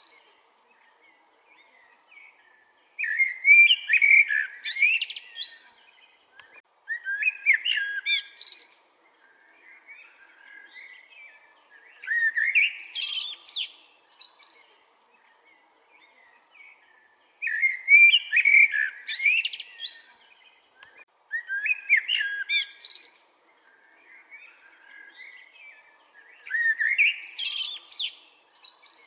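A songbird singing complex, warbled phrases of two to three seconds each, repeated every four to five seconds, with softer phrases in the gaps.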